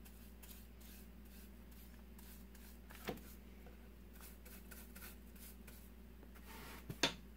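Faint, quick scratchy strokes of a paintbrush's bristles on bare wood as black tea is brushed on, the tannin coat for a vinegar and steel wool stain. A light tap comes about three seconds in and a sharper knock near the end.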